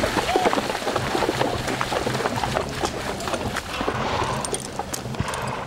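Horses' hooves thudding and squelching through wet mud, a run of short irregular knocks, with music underneath.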